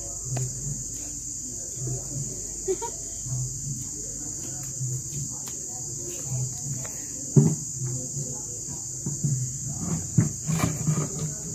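Crickets chirping in a steady, high trill, with scattered small knocks and clatters on top, the loudest about seven and a half seconds in.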